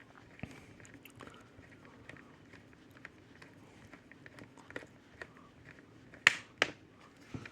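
Small screws being driven into a laptop's bottom cover with a hand screwdriver: faint scattered clicks and ticks, with two sharper clicks a little after six seconds in.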